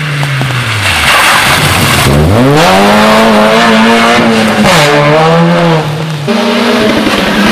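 Rally car engine at full racing volume. Its revs fall away over the first second, then it revs up sharply about two seconds in and holds high. Near the end the revs dip for about a second and climb again.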